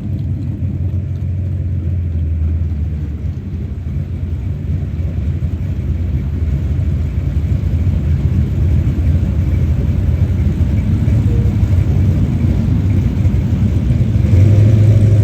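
Car engine idling with a steady low rumble that slowly grows louder. About fourteen seconds in, the engine note gets stronger and louder.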